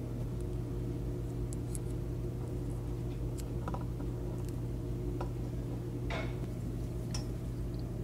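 Light scattered clicks and taps of a clear plastic pass-through RJ45 plug and Cat5e wires being handled as the conductors are fed through it, over a steady low hum.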